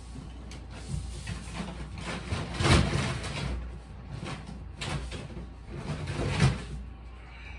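Rummaging in a search for BB pellets: things shuffled, scraped and knocked about, with three louder scrapes and knocks about two seconds apart.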